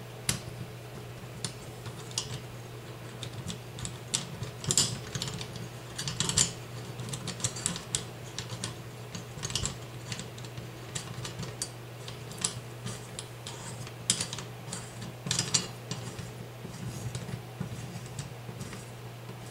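Irregular small metallic clicks and taps, some in quick clusters, as a shotgun rail's mounting clamp is fitted around the barrel and a bolt is started by hand. A steady low hum runs underneath.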